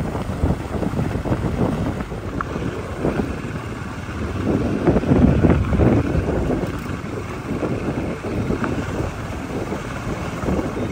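Wind buffeting the microphone: an uneven low rumble that swells and fades, loudest about halfway through.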